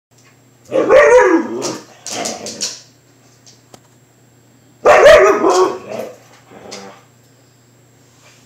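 Siberian husky vocalizing at close range, its pitch bending up and down, in two loud bouts about a second in and about five seconds in, each followed by shorter, quieter calls.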